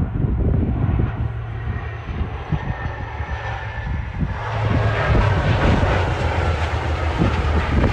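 Saab 2000's twin Rolls-Royce AE 2100 turboprop engines and propellers running as the airliner rolls out along the runway after touchdown. The steady low drone broadens and grows louder from about four seconds in as the aircraft passes closest.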